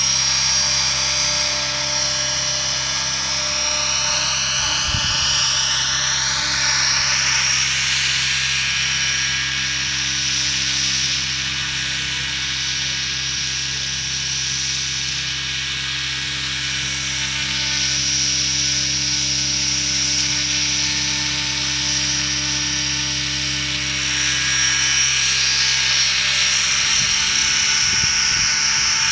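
Large nitro-powered RC helicopter flying: the small glow engine and rotors run with a steady buzz and a high whine. The whine's pitch sweeps down and up over the first several seconds and again near the end as the helicopter passes and turns, and holds steady while it hovers low in between.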